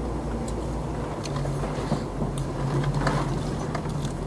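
Jeep engine running at low revs with a steady low hum as it crawls a rough off-road trail, with a few sharp clicks and knocks from the vehicle.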